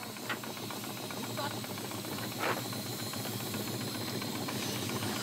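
A small engine on a wooden fishing boat running steadily under a constant hiss, with three short knocks about a third of a second, a second and a half, and two and a half seconds in.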